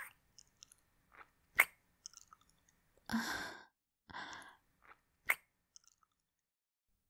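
Close-miked kissing sounds: a few sharp, wet lip smacks, with two soft breathy sighs about three and four seconds in.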